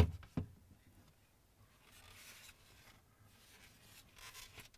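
Plastic refrigerator divider knocking against its mounting brackets as it comes free, two sharp knocks at the start, then soft plastic scraping and rubbing twice as it is slid out.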